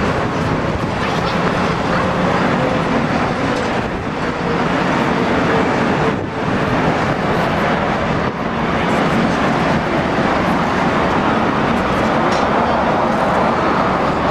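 Jet cargo aircraft engines running, a loud steady roar with a faint whine that slowly falls in pitch during the first half.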